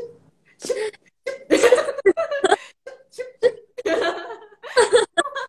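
Women laughing together, in many short, loud bursts of laughter.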